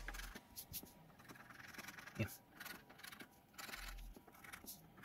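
A coin scraping the scratch-off coating from a lottery ticket in short, faint strokes.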